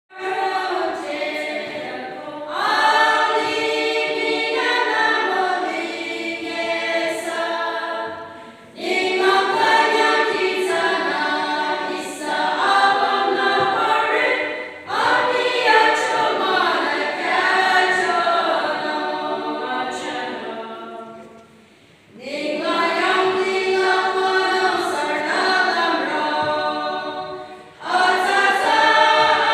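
A women's choir singing unaccompanied, in phrases separated by short breath pauses, the longest about three-quarters of the way through.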